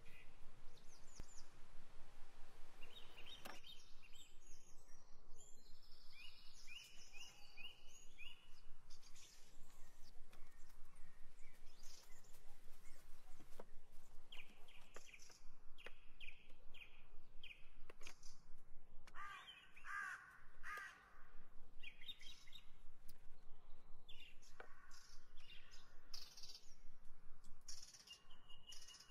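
Wild birds singing and calling throughout in repeated short chirping phrases, with a few sharp knocks in between.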